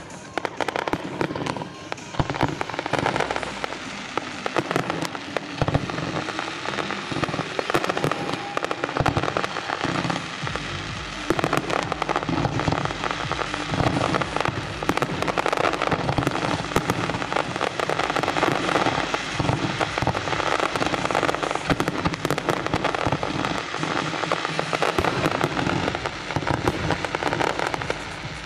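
Fireworks display: a dense, continuous stream of crackling and popping shell bursts, growing thicker and louder about ten seconds in.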